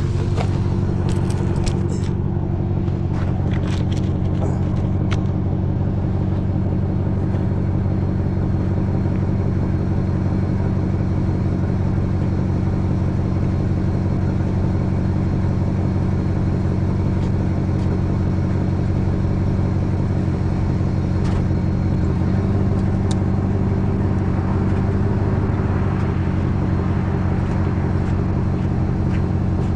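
A vehicle engine running steadily at low revs, a deep even hum, during a slow pull on wire tied to its hitch. Several sharp clicks come in the first few seconds.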